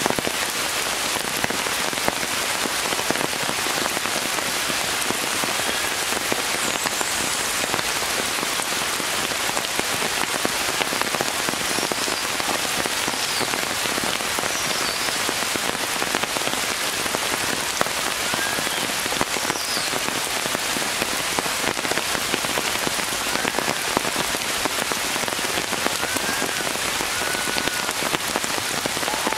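Steady rain falling on forest leaves, an even, dense patter of drops.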